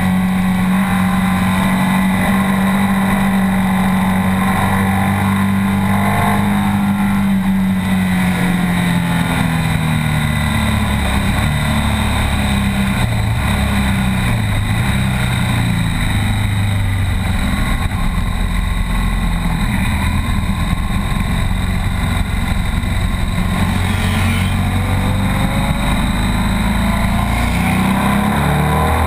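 BMW R 1200 S boxer-twin engine heard from on board while riding hard on track. It holds high revs at first, drops in steps about eight to eleven seconds in as it slows, runs lower and shifting in pitch through the middle, and revs up again near the end as it accelerates away. A constant rush of wind noise runs underneath.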